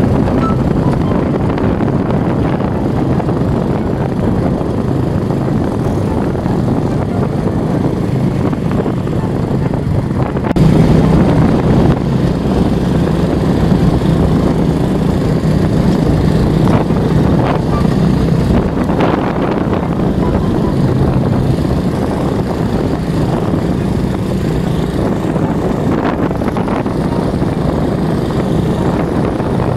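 Motorcycle engine running steadily while riding, with wind noise on the microphone; it gets louder about ten seconds in as the throttle is opened.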